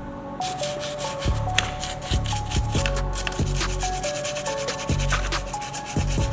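Sandpaper rubbed back and forth in quick, repeated strokes, starting about half a second in, over background music.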